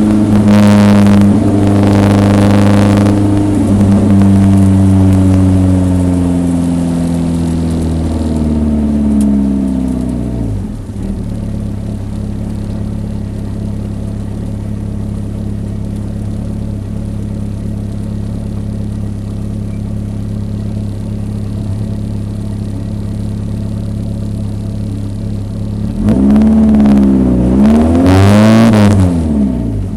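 1974 BMW 2002 racecar's four-cylinder engine, falling in pitch over about ten seconds as the car slows, then idling steadily, with two quick blips of the throttle near the end.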